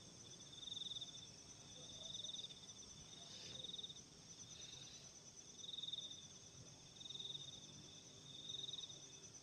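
Faint night insects calling, cricket-like: a short pulsed trill repeats about every second and a quarter, about seven times, over a steady higher-pitched pulsing chorus.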